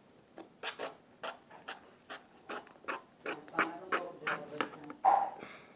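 Fluffy slime being stirred in a pot, giving a run of irregular sticky clicks and squelches as it starts pulling away from the sides.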